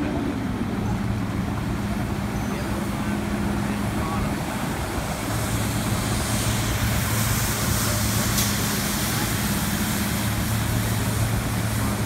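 Asphalt cold milling machine at work: a steady low diesel hum under a broad rushing, grinding noise as its drum cuts off the old road surface. The rushing grows louder in the middle, and there is a single sharp click.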